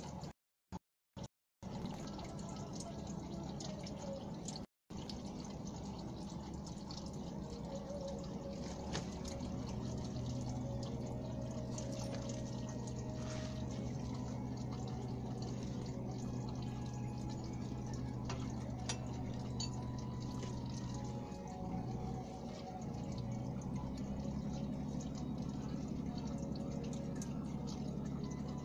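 Used engine oil draining in a steady stream into a container during an oil change. A low steady hum joins from about ten seconds in.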